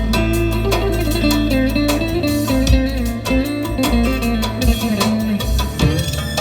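Music led by a guitar playing a stepping melody over a steady low bass and a beat.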